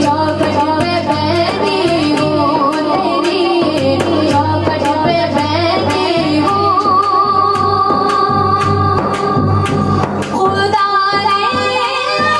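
A woman singing an Urdu naat over a steady percussion beat, holding one long wavering note in the middle before a short break about ten seconds in.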